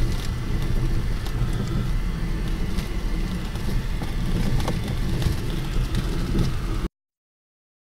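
Vehicle interior noise while driving on a rough dirt road: a steady low rumble with scattered small rattles and clicks, cutting off abruptly about seven seconds in.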